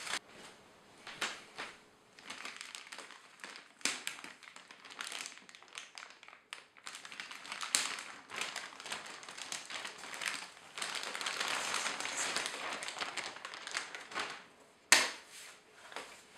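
Plastic wrapping crinkling and rustling as hands unwrap an audio interface, broken by a few knocks, with the sharpest knock a little before the end.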